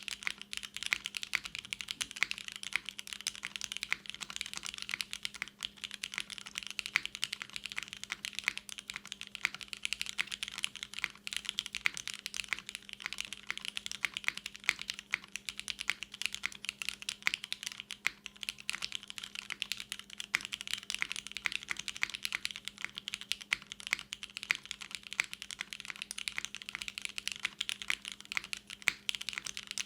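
Continuous fast typing on a Singakbd Kohaku custom mechanical keyboard with a polycarbonate case and aluminium plate. Its lubed, spring-swapped vintage Cherry MX Black linear switches and GMK doubleshot keycaps give a rapid, unbroken stream of keystroke clacks. A faint steady hum sits underneath.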